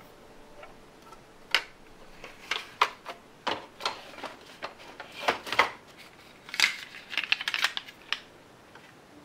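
Hard plastic clicks and knocks as a watercolour palette case and a plastic paint palette are handled and set down on a perforated plastic cart shelf, with a quick run of rattling clacks near the end.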